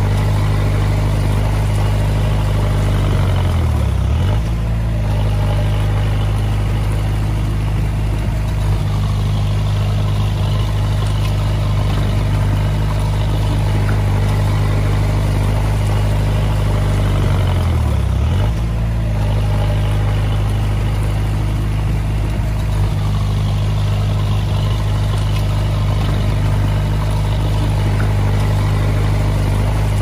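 Komatsu D20A bulldozer's diesel engine running steadily under throttle. Its pitch drops sharply and recovers twice, about four seconds in and again around eighteen seconds.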